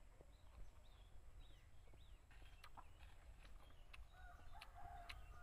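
Faint distant chickens: a few short high chirps in the first half, then one long level call starting about four seconds in.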